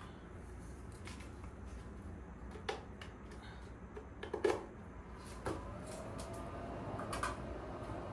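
Small sticks and paper tinder being fed into a small wood-burning camp stove as the fire catches: scattered clicks, knocks and crackles, the loudest a short cluster about four and a half seconds in.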